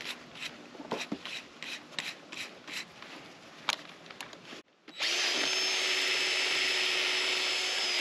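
A run of light clicks and taps for about four and a half seconds, then after a brief gap a DeWalt 20-volt cordless drill with a hole saw fitted starts and runs steadily, loud and even, through the end.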